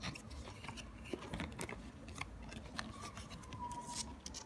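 Light clicks and crackles of laminated card pages being handled and flipped on a metal binder ring.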